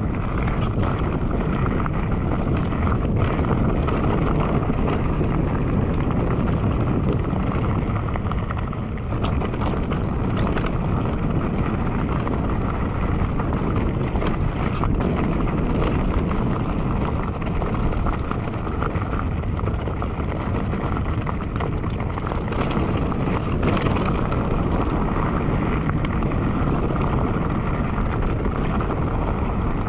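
Mountain bike being ridden over rough trail: tyres rolling and rattling over the ground, with wind rumbling on the microphone.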